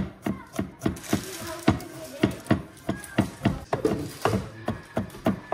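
Chef's knife chopping ginger on a wooden cutting board: a quick, steady run of knife strikes on the wood, about three to four a second, mincing it fine by hand.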